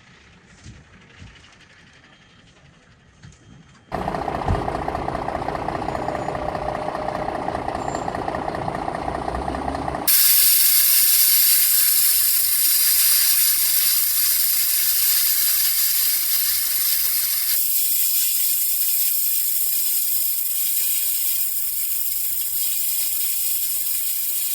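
Loud, steady hissing rush of water spraying from a fire hose. For its first six seconds the spray comes with a mechanical rumble and a faint steady tone. It then switches abruptly to a brighter, harsher hiss.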